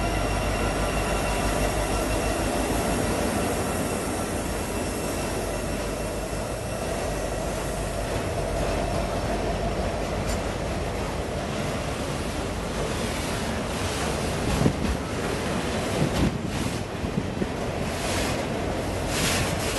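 A freight train of autorack cars rolling past close by, with steady wheel and rail noise. At first a steady whine from the passing diesel locomotive fades away over a few seconds. Sharp clunks and clicks of the car wheels come in the later part.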